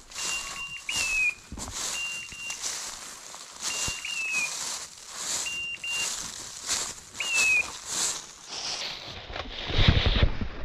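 Hunting dog's beeper collar in point mode, sounding a repeating electronic pattern of short high beeps and a short falling chirp about every second and a half: the signal that the dog is standing on point. Under it, footsteps crunch and rustle through frosty grass and brush, with a louder rumbling rustle near the end.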